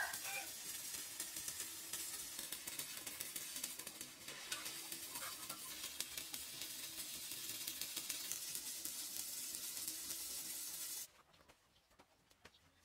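Electric arc welding: a steady crackling sizzle of the arc on steel that stops abruptly about eleven seconds in.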